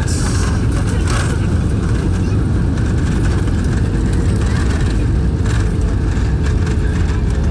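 Airbus A320 airliner on its landing rollout, decelerating on the runway after touchdown, heard from inside the cabin: a loud, steady low rumble of the engines and the wheels on the runway.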